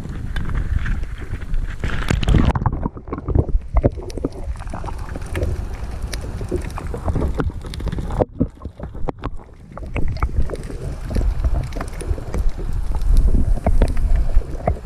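Water sloshing and wind buffeting a GoPro microphone at the side of a kayak. About two and a half seconds in, the sound turns muffled as the camera goes under water, leaving a low rumble of moving water with scattered knocks and clicks against the housing.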